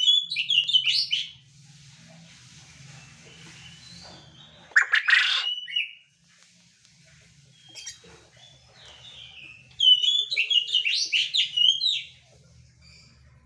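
Quail calling in two bouts of rapid, high chirping notes, one at the start and one about ten seconds in, with a shorter, harsher call around five seconds in.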